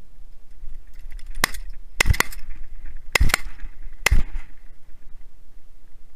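Volley of shotgun shots: about six sharp reports over roughly three seconds, some in quick pairs.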